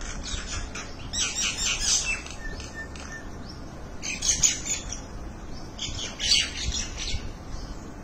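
Common mynas calling: harsh, rapid chattering in three loud bursts, about a second in, about four seconds in, and near the end.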